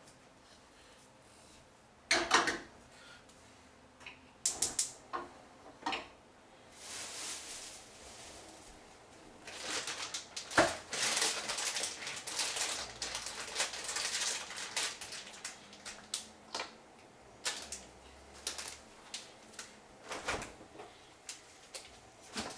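Kitchen handling noises: scattered knocks and clatters of utensils and dishes on a countertop, with a long stretch of rustling in the middle. Near the end a refrigerator door is pulled open.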